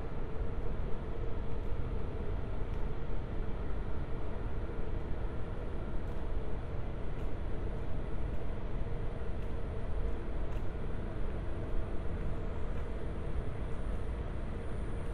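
Steady low rumble of distant city traffic at night, with no single passing vehicle standing out. A faint high whine runs under it and grows a little louder near the end.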